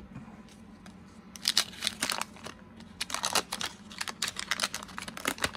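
Wax-paper wrapper of a 1986 Fleer baseball card pack crinkling and tearing as the pack is opened, in two bursts of quick crackling: one about a second and a half in, a longer one from about three seconds in.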